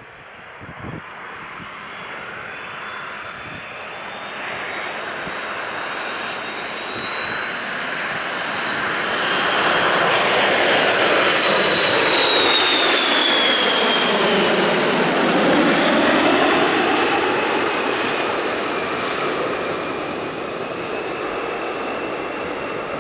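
McDonnell Douglas MD-82 jet airliner on landing approach passing low overhead, its Pratt & Whitney JT8D turbofans growing steadily louder, loudest about ten to sixteen seconds in, then easing off. A high engine whine runs through it and drops in pitch as the jet goes by.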